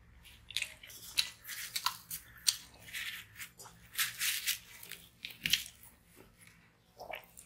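Close-miked chewing and biting of flaky porota flatbread, with the bread being torn by hand: a run of short, crisp crackles and mouth clicks at an irregular pace, busiest through the middle and thinning out near the end.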